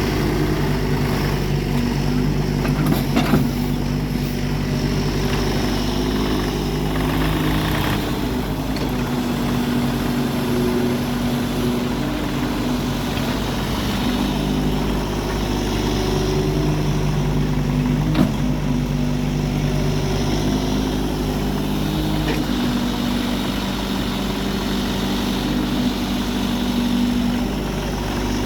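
Engine of a heavy farm machine running steadily, with a sharp knock a few seconds in and another about two thirds of the way through.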